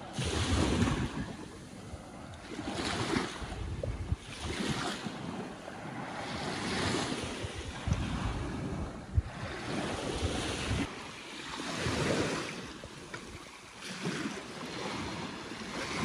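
Small sea waves washing onto the shore in repeated surges every second or two, with wind rumbling on the microphone.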